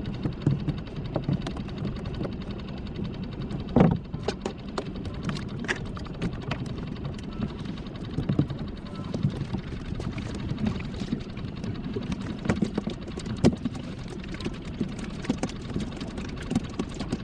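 Irregular knocks and clicks of fishing tackle being handled against a small plastic skiff's hull and deck, with one louder knock about four seconds in, over a steady low hum and water noise.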